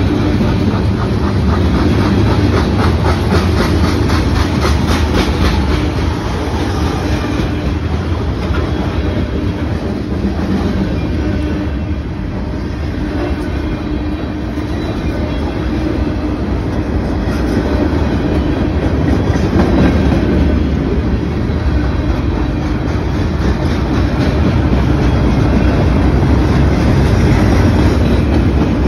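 Freight train cars rolling past at close range: a continuous heavy rumble with steel wheels clacking rhythmically over the rail joints.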